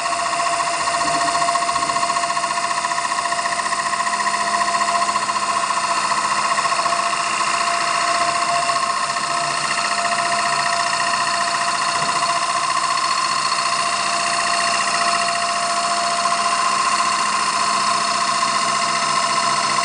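CNC wood lathe running steadily, a continuous machine whine with several held tones.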